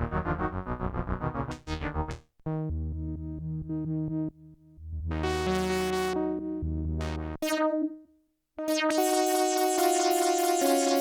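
Arturia MicroFreak synthesizer playing a series of preset sounds: a fast repeating run of notes that stops about two seconds in, then sustained low chords, a short decaying note, and from about eight and a half seconds a bright held chord.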